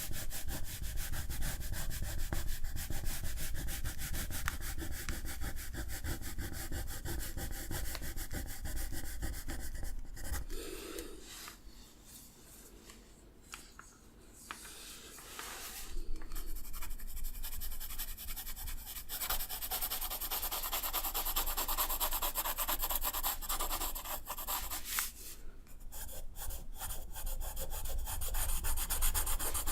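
A drawing tool rubbing across paper in quick back-and-forth strokes, close to the microphone, with a short pause about eleven seconds in and a brief break near twenty-five seconds.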